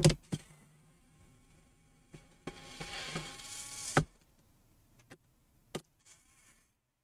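Cordless electric screwdriver whirring for about a second and a half as it backs out a Phillips screw from a laptop's plastic bottom cover, ending in a click. A sharp click comes at the start, and a few light ticks follow near the end.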